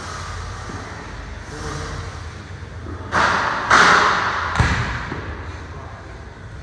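Dumbbell snatches: a dumbbell hits the rubber gym floor with one sharp thud about four and a half seconds in. Just before it comes a loud rushing noise lasting over a second.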